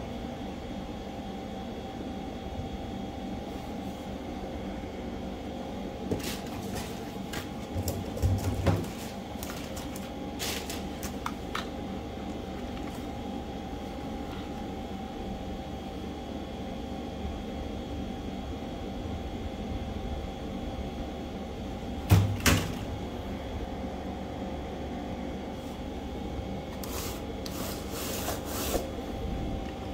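Knocks, clicks and light rattles of a loose laptop keyboard and a boxed SSD being handled and set down on a desk, the loudest thumps about a third of the way in and again about two thirds in, over a steady background hum.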